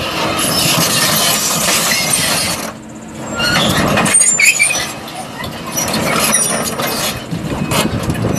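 Link-Belt 240L excavator travelling on steel triple-grouser tracks: its Isuzu 6.5 L six-cylinder turbo diesel running under load with the track chains clanking, and short high squeaks from the undercarriage. The noise drops briefly about three seconds in.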